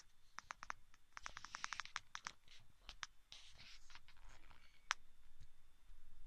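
Handling noise from the handheld camera as it is moved: a quick, irregular run of small scratches and clicks, with one sharper click about five seconds in.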